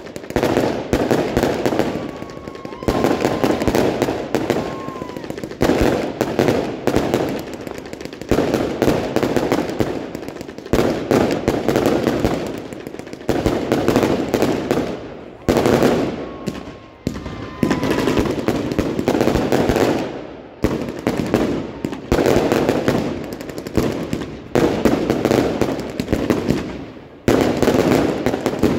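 Fireworks going off in a dense barrage: rapid bangs and crackling from aerial shells and rising comets, in clusters with short lulls between them.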